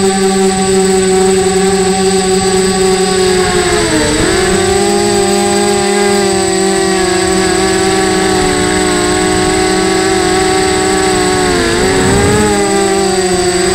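Mini quadcopter's electric motors and propellers whining in flight, heard close up from the onboard camera. The motors slow briefly about four seconds in and again near the end, dropping in pitch, then pick back up.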